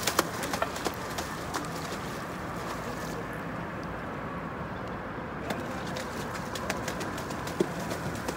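A hooked fish thrashing at the water's surface beside a wooden piling, with sharp splashes in the first second and again near the end and a steady background between.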